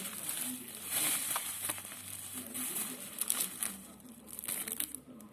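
Plastic packaging crinkling and rustling as it is handled and opened, in irregular bursts, loudest about a second in and again around three seconds, easing off near the end.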